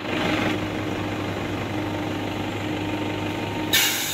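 JCB 210LC excavator's diesel engine running steadily with a low drone. A sudden short loud hiss cuts in near the end.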